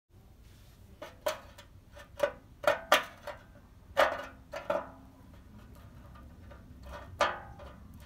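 Metal fork clinking and scraping against a greasy metal oven tray as it prods at baked-on residue: a string of sharp, briefly ringing clinks, irregularly spaced.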